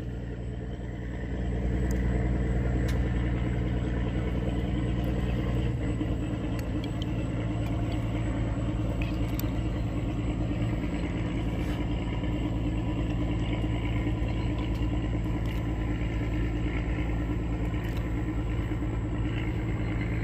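Small long-shaft outboard motor on a wooden boat running under way with a steady, even hum. It picks up about a second and a half in and then holds its pace.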